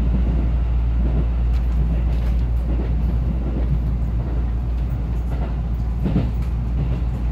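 Running noise inside an electric commuter train car on the move: a steady low rumble with a few brief knocks from the wheels and track.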